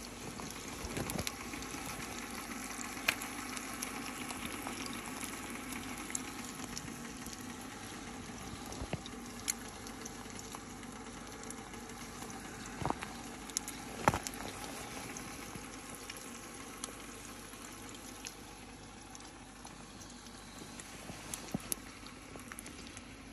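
Eggs frying in a cast-iron pan on a small wood-burning stove: a steady sizzle with occasional sharp clicks and pops.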